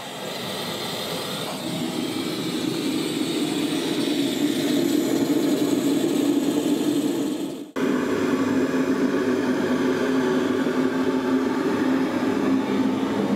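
Pressurised burner flame under a tyre vulcanizing press, burning with a steady rushing noise that grows louder over the first few seconds after lighting as the flame builds; it is heating the press to cure a truck tyre sidewall repair. The sound breaks off for an instant about two-thirds of the way through, then carries on steady.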